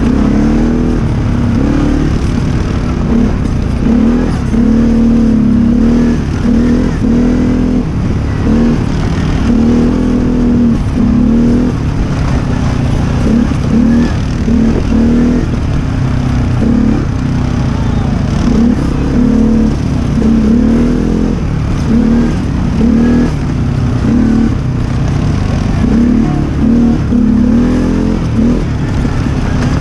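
ATV engine running while riding, its pitch rising and falling again and again as the throttle is worked, over a steady low rumble.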